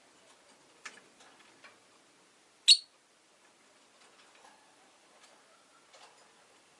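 Rosy-faced lovebird giving a single short, sharp, high chirp a little under three seconds in, among a few faint clicks and ticks.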